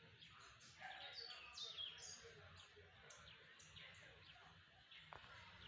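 Birds chirping: many short, quick downward chirps overlapping one another, faint throughout.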